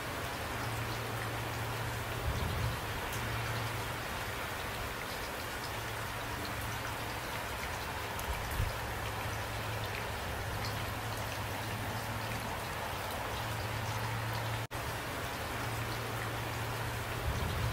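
Steady rain falling, with single drops ticking close by over a continuous wash, and a low hum underneath. The sound cuts out for an instant about fifteen seconds in.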